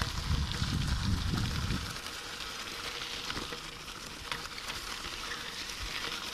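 Bicycle tyres crunching steadily over a loose gravel road, with scattered small clicks from the stones. Wind buffets the microphone with a low rumble for the first two seconds, then eases off.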